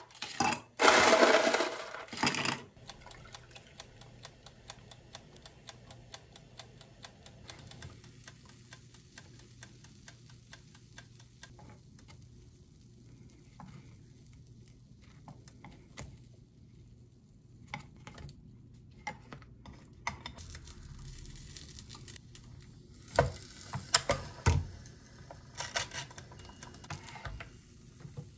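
Ice cubes scooped from an ice bin and rattled into a glass near the start. Later come scattered light clicks and a few sharper knocks as plastic tongs work croffles out of an electric waffle maker's plates.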